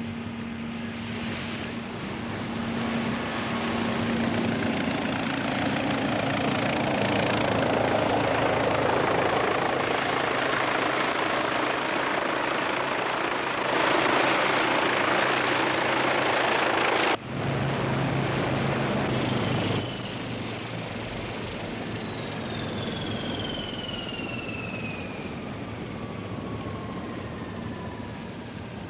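Westland Wasp helicopter, its rotor and engine noise swelling up and holding loud, briefly cut off about seventeen seconds in. Over the last third, a whine falls slowly and steadily in pitch as the noise dies back.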